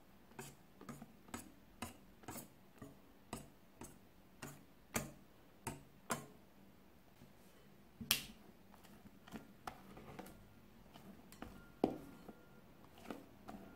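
Wire whisk clicking against a glass mixing bowl while meringue is folded into chiffon cake batter by hand, about two taps a second at first. After a short lull about seven seconds in, the taps become sparser and irregular, with two sharper knocks.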